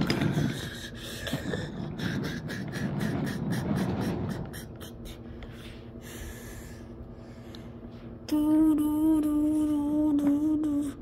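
Toy passenger train cars pushed by hand along a toy track: a low rolling rumble with quick clicks from the wheels, fading out after about four seconds. Near the end a voice holds one steady hummed note for about three seconds.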